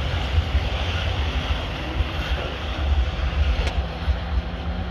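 Freight train pulling away up a grade: a steady low rumble of the last cars rolling on the rails, with the SD40 diesel locomotive working up ahead. A steady hum joins about three seconds in.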